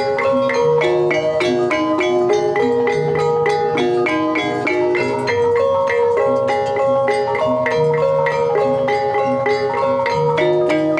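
Javanese gamelan playing a Banyumasan tayub gending: an instrumental passage of rapid, evenly paced struck notes from tuned mallet instruments over recurring low held tones.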